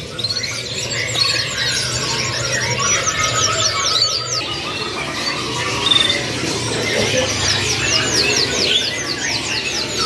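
A chorus of caged domestic canaries singing, with fast trills of rapidly repeated falling high notes over a busy mix of other chirps.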